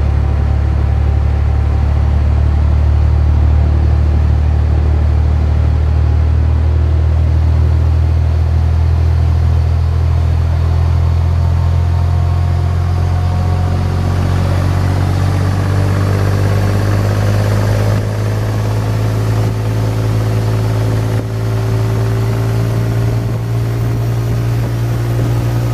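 Inboard engine of a small fishing boat running under way with a loud, steady low drone. Its note shifts a little about two-thirds of the way in.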